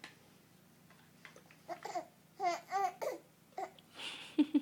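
Baby babbling: a handful of short, high-pitched coos and squeals that begin after a second or two of quiet.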